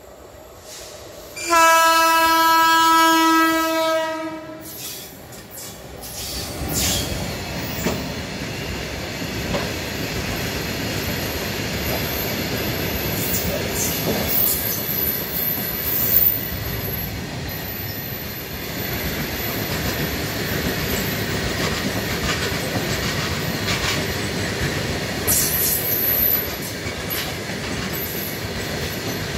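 WAG-12B electric freight locomotive sounding one long horn blast of about three seconds. Then a freight train of covered goods wagons passes close by: a steady rumble and clickety-clack of wheels over the rails, with brief high wheel squeals twice.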